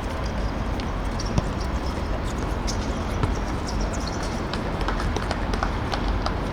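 Football players running on the pitch: a quick, irregular patter of footsteps with a few louder knocks, over a steady outdoor rumble.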